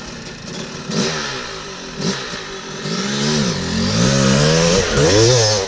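Yamaha YZ250 two-stroke dirt bike engine blipped twice about a second apart, then revved up hard as the bike sets off. The pitch rises and falls in repeated sweeps and is loudest near the end.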